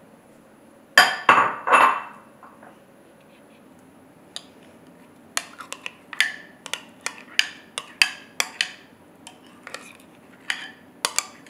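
Dishes clattering: a ceramic bowl set down on a stone countertop with three loud knocks about a second in, then from about five seconds a run of quick clinks and taps as a spoon scrapes thick yogurt dip out of a glass mixing bowl into the ceramic bowl.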